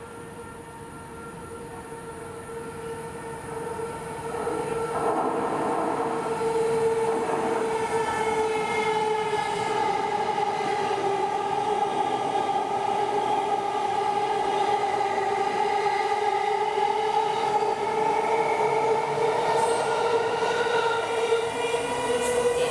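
JR electric commuter train moving through the station, growing louder a few seconds in, with a steady whine of tones that holds for most of the time.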